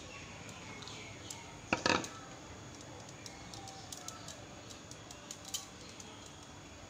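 Faint handling sounds of raw shredded potato being spread and patted by hand on a cloth towel: soft scattered clicks and rustles, with one brief louder clatter about two seconds in.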